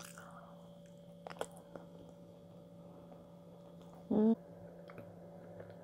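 Mouth sounds of biting into and chewing a soft, dense brownie close to the microphone, with faint wet clicks. About four seconds in comes a short hummed "mm" of enjoyment, the loudest sound.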